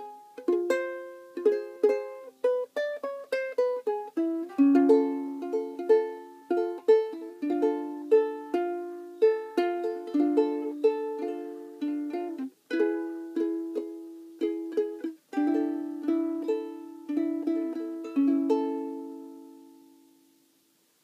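Solo ukulele, a tune of plucked notes and chords, ending on a final chord that rings out and fades away near the end.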